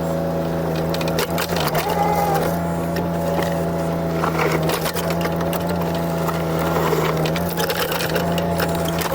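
JCB 8026 mini excavator's diesel engine running steadily, with repeated crackling and cracking sounds from about a second in as the machine works the ground.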